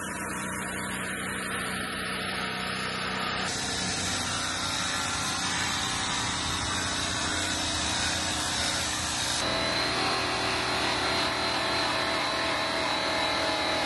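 Handheld electric angle polisher with a buffing pad running steadily against an aluminum semi-truck wheel, its motor giving a steady whine. The sound changes abruptly twice, about three and a half and nine and a half seconds in.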